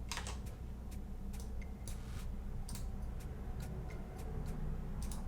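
Computer mouse clicks and keyboard taps while copying and pasting: sharp, irregular clicks about three a second over a low steady hum.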